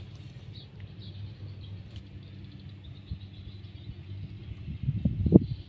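Outdoor ambience: a steady low rumble with faint bird chirps, and a short louder rustle or knock about five seconds in.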